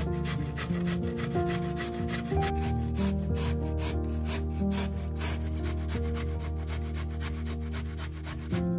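A carrot being grated on a stainless steel box grater: regular rasping strokes, several a second, stopping shortly before the end. Background music plays underneath.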